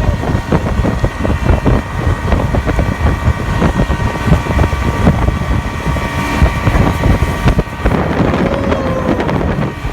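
Motorboat running under way, with heavy wind buffeting the microphone throughout.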